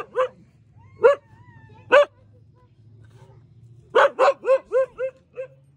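Dog barking: a few single barks spread about a second apart, then a quick run of about six barks near the end.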